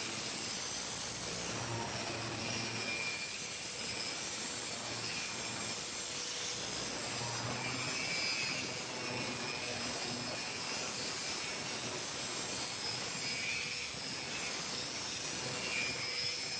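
Angle grinder fitted with a dust extraction shroud, running together with a vacuum dust extractor: a steady rushing noise with a faint high whine that wavers a little in pitch.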